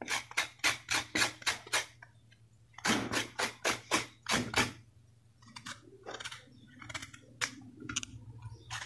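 Kitchen knife scraping the ridged skin off a bitter gourd (karela) in quick repeated strokes, about four a second, in two runs with a short pause between. From about halfway on, the scraping is softer and more irregular.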